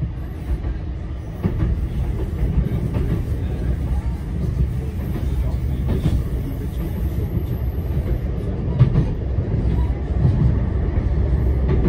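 Electric tram running on its rails: a steady low rumble with a few faint clicks.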